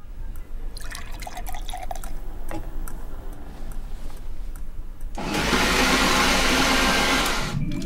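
Small clicks and knocks of things being handled at a kitchen counter. About five seconds in, a countertop blender switches on and runs with a loud rushing whir. It cuts off suddenly near the end.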